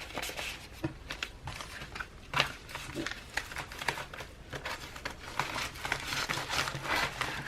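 Packaging being handled and crinkled by hand, a run of rustles and small sharp crackles that grows busier toward the end, as an envelope order is put away and the next package is opened.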